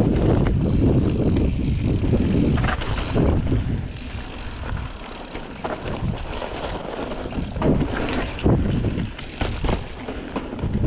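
Mountain bike riding down a dirt trail, heard from the bike: wind buffeting the microphone over the rumble of tyres on packed dirt, with short clattering knocks from the bike over bumps. The wind rumble is heavy for the first few seconds and eases after about four seconds, while the knocks come more often near the end.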